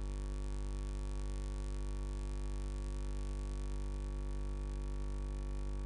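A steady, unchanging electronic hum made of several held tones, strongest in the low bass, with no beat or variation.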